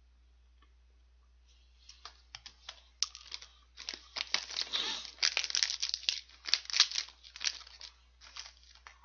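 Individual plastic wrapper of a Lotte Custard cake crinkling and tearing as it is opened and handled: a dense run of sharp crackles that starts about a second and a half in, is loudest in the middle and thins out near the end.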